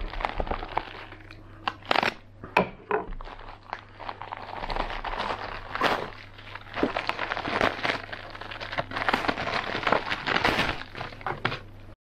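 A Victorinox knife with a coarse 250-grit diamond-plate edge slicing through natural-fibre rope, the fibres crackling and crunching irregularly. Rope handling rustles throughout, with a few sharp clicks and knocks.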